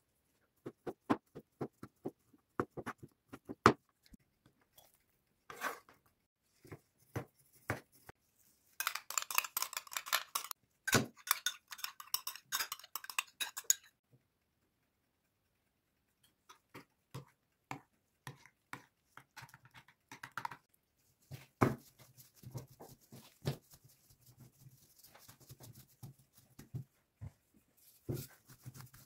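Knife slicing through a sausage onto a wooden cutting board, a regular run of about three cuts a second. Later a metal spoon scrapes and stirs sauce in a ceramic bowl for several seconds, followed by scattered light knocks and rubbing.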